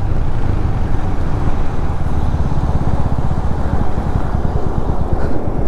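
Royal Enfield Hunter 350's single-cylinder engine running steadily as the motorcycle is ridden along, with a continuous rush of wind and road noise.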